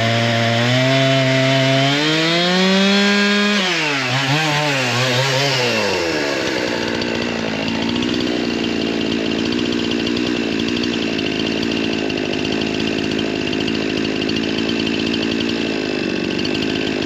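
Two-stroke chainsaw engine revving up, its pitch wavering and surging for a couple of seconds before it settles into steady high-speed running. The uneven running comes from the saw running low on fuel.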